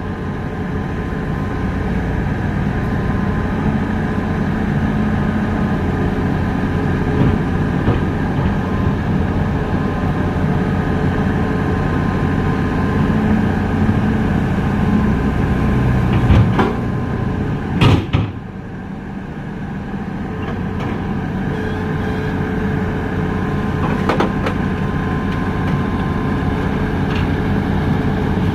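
Heavy diesel engine running steadily, with a cluster of loud metallic clanks and knocks about two-thirds of the way through, after which the engine drops briefly and then builds back up.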